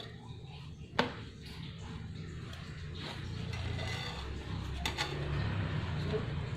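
Kitchenware being handled: two sharp clinks, about a second in and again near five seconds, over a steady low hum.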